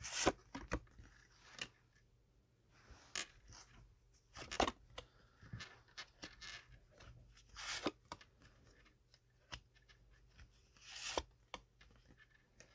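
Tarot cards being handled: irregular brief swishes and taps as cards are shuffled, slid out and laid down.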